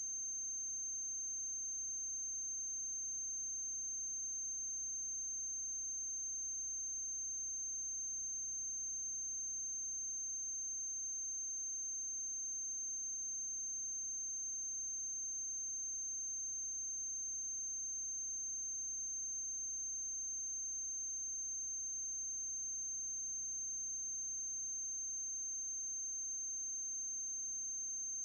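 Steady electrical hum with a constant high-pitched whine over faint hiss, unchanging throughout: line noise on the soundtrack of a silent film transfer, with no other sound.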